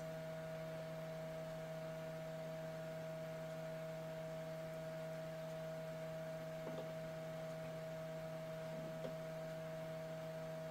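Steady hum of a running Dell Dimension XPS T550 desktop tower, its fans and power supply turning, with two faint clicks in the second half.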